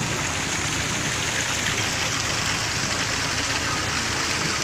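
A bus engine running low under a steady hiss.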